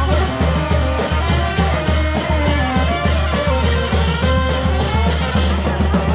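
Loud music with a steady beat, heavy bass and a melody line.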